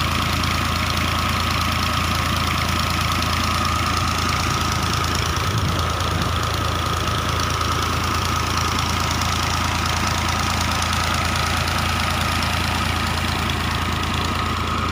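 Fiat diesel tractor engine running steadily at constant speed under load, driving a tube well pump.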